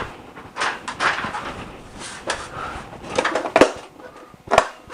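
Handling noises of a ceiling light fixture's cover being checked by hand: irregular rustles and knocks, with two sharp clicks near the end as the cover is pressed against its frame.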